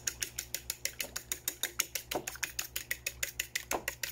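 A fork beating raw eggs in a ceramic bowl, its tines clicking against the bowl in a fast, steady rhythm of about eight clicks a second.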